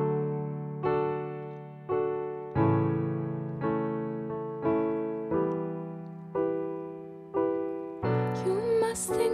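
Slow solo piano chords on a digital keyboard, each chord struck about once a second and left to ring and fade. Near the end a woman's singing voice comes in over the chords.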